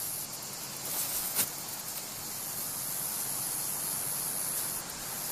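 Steady hiss of background noise, with one short faint tick about a second and a half in.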